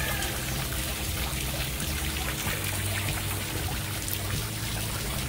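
Water from a stepped rock-wall garden fountain running and trickling down over the stones into its pond, driven by a freshly cleaned submersible pump that is working again. Background music plays along with it.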